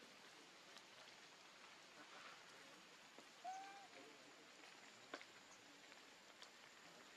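Near silence: faint steady outdoor hiss, broken about halfway through by one short, slightly bending squeak and, a moment later, a single sharp click.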